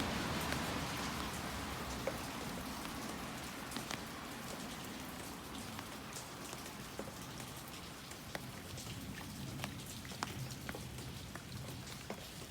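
Rain falling steadily, with scattered drops ticking sharply on hard surfaces; the overall noise slowly dies down.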